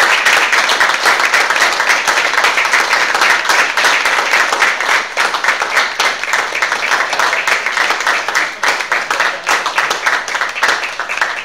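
Audience applauding: a dense, loud round of clapping that tapers off at the very end.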